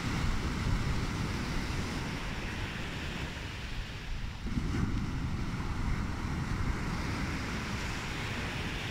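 Sea waves breaking and washing up the shore in a steady rush, with wind rumbling on the microphone.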